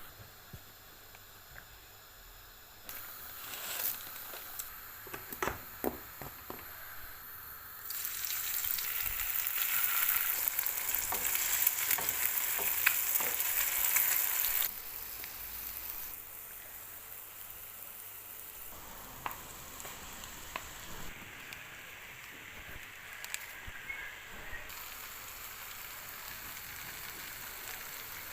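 Food sizzling in a frying pan, with sharp clicks of a utensil against the pan while it is stirred. The sizzle is loudest from about eight to fifteen seconds in and steps up and down abruptly several times.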